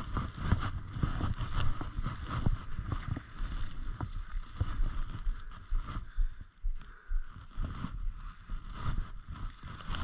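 Snowshoe footsteps crunching and swishing through deep snow in a steady walking rhythm, easing briefly about six seconds in.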